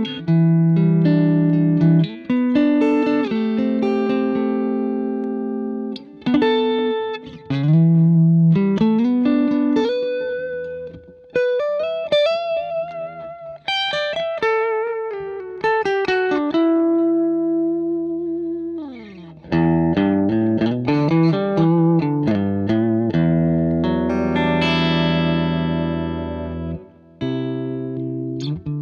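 Fender Telecaster electric guitar played through an All Pedal Galacta Vise compressor into a Vox AC30 amp: picked single-note lines and chords with long, evenly decaying sustain, bent notes midway and a sliding pitch sweep about two-thirds through.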